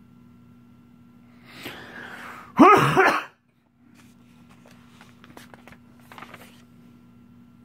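A person takes a quick breath and then coughs loudly a few times in quick succession. Afterwards come faint taps and rustles of a hand on the comic book's pages.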